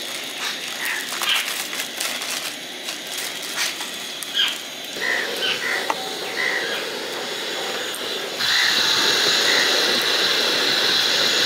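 Plastic instant-noodle wrappers crinkling as they are torn open, a rapid crackle of clicks over the first few seconds. After that comes a steady hiss from the gas burner and the pan of boiling water, which jumps much louder about eight seconds in.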